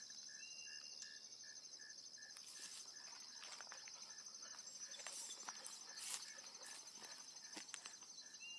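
Faint insects calling steadily: a continuous high buzz and a regular chirp about three times a second, with a few faint clicks.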